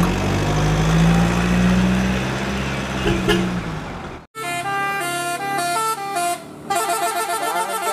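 Deep truck air horn blasting steadily for about four seconds, then cut off abruptly. After the cut comes a quick tune of short pitched notes.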